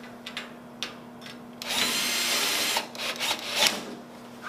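Cordless drill-driver running for about a second, driving a T30 screw that fastens a hinge or catch to the steel enclosure frame, then a few short bursts as the screw seats. Light clicks of handling come before it.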